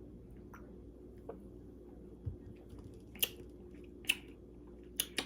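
Lip smacks and mouth clicks of someone tasting a diet soda: a few short, sharp clicks, mostly in the second half, over a steady low hum. There is a soft low bump about two seconds in.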